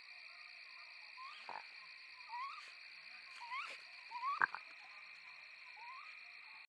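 A series of five short calls, each sliding upward in pitch, over a steady high-pitched drone. A soft knock comes about a second and a half in, and a louder one about four and a half seconds in.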